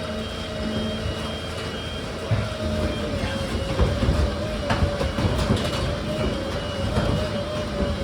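A machine running with a steady whine over a low rumble, joined from about two seconds in by irregular knocks and clatter.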